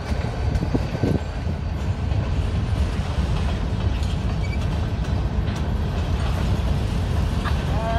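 Ferromex covered hopper cars rolling past: a steady low rumble of steel wheels on rail, with a few sharp clicks about a second in.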